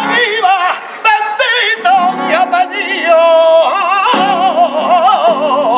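Male flamenco cantaor singing fandangos: long melismatic lines and held notes with a wide, wavering vibrato, with a brief breath about a second in.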